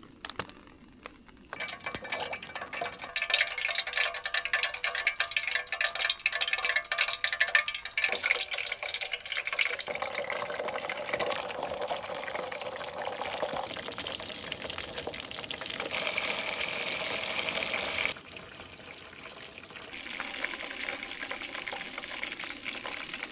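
Pieces of Taiwanese popcorn chicken deep-frying in hot oil: a dense, crackling sizzle that starts about a second and a half in and is loudest in the first half. It changes abruptly several times as takes are cut together.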